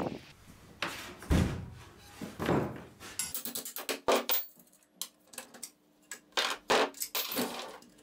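Metallic clinks and clicks of a bench grinder being taken apart: a wrench on the arbor nut, and steel flanges and the nut knocked and set down on a wooden bench. They start about three seconds in, after a few dull thuds.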